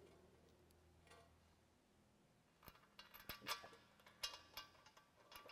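Near silence, with a few faint, light clicks and taps from about halfway through as a small part is handled and fitted onto a net support beam.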